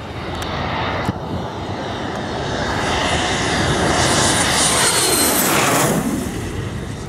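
BAE Hawk T1 jet with its Adour turbofan on a low landing approach, gear down, passing overhead: the engine's rush and high whine grow steadily louder, peak as it goes over near the end, then drop in pitch and fade.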